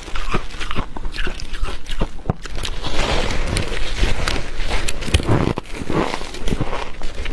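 Dry freezer frost crunching as it is bitten and chewed, close to the microphone: a dense run of sharp crackles and crunches, thickest a few seconds in.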